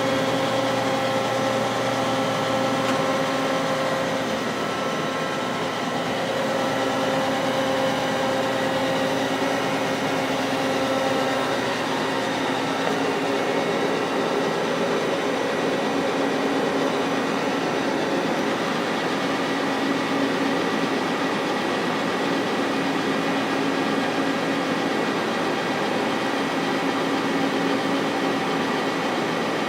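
Hardinge CNC lathe running steadily: an even mechanical hum with several steady tones and no change in speed. The low hum shifts slightly about three seconds in.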